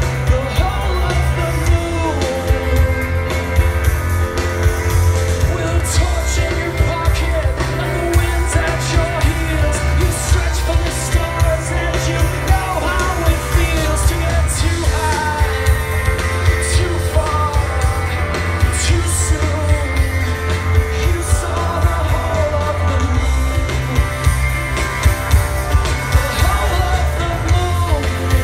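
Live rock band playing with a lead singer over bass, drums and electric guitar, heard from the audience.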